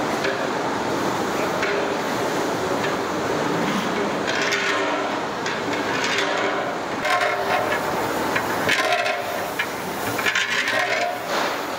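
Long metal ladle stirring through a large pot of vegetables and rice over a wood fire, against a steady rushing background noise. Indistinct voices come and go from about four seconds in.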